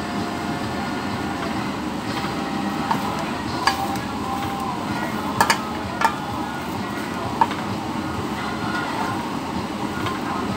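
Spatula clicking and scraping against a stainless steel skillet as a sausage omelet is lifted and cut, with about half a dozen sharp clinks, over a steady background rush.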